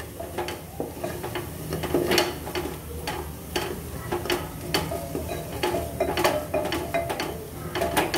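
A wooden spatula stirring and scraping masala (ground spices in an onion-tomato paste) frying in oil in a pressure cooker. It knocks and scrapes against the pan irregularly, one or two strokes a second, over a faint sizzle.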